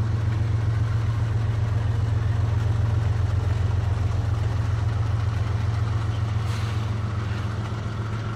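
CSX diesel-electric freight locomotives passing slowly at close range: a steady, deep engine drone with a fast pulsing rumble underneath.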